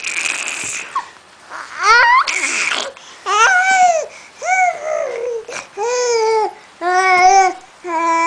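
Baby vocalizing: a breathy sound at first, then a run of short, high-pitched arching cries, about one a second.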